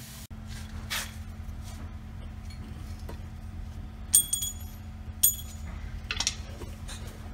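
Metal tools clinking and knocking on a truck's driveshaft during a center support bearing replacement: scattered knocks, with two sharp, ringing clinks about a second apart near the middle, over a steady low shop hum.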